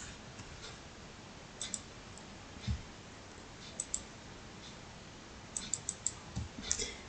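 Computer mouse buttons clicking, mostly in quick pairs, with a run of clicks near the end. Two soft low thumps, about a third of the way in and near the end.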